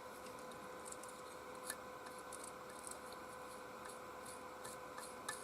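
Faint, scattered small clicks and taps of the opened travel hairdryer's plastic parts being handled, over a faint steady hum.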